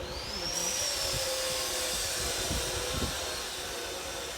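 A power tool running steadily, with a high whine that climbs as it spins up and falls as it winds down near the end.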